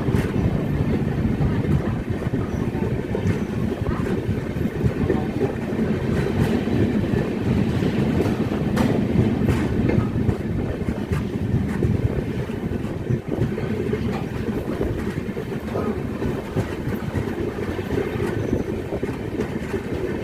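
Train running on the track: a steady low rumble of wheels on rails with occasional light clicks.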